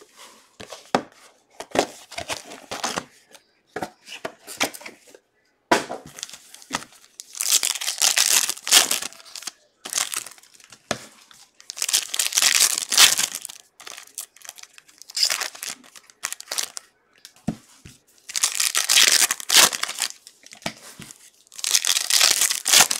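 Foil wrappers of Panini Contenders basketball card packs being torn open and crinkled by hand. There are several loud bursts of tearing a few seconds apart, with lighter rustling and handling between them.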